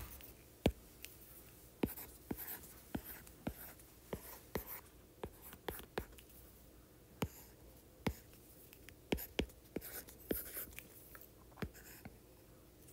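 Stylus tip writing on a tablet's glass screen: an irregular string of sharp taps, about one or two a second, with short soft scratchy strokes between them as the letters are formed.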